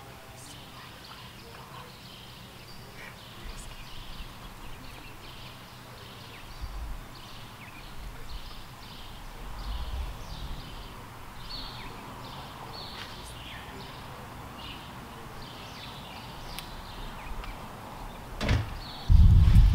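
Outdoor ambience: faint short high chirps and low wind rumble on the microphone. A single sharp knock comes near the end, then loud low rumbling from the microphone being handled or buffeted.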